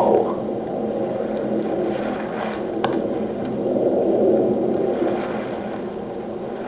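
Playback of a hissy field recording from an audio recorder: a steady hum and hiss with a low swell in the middle and a single sharp click. The investigator hears a man's voice answering 'no' in it, an EVP.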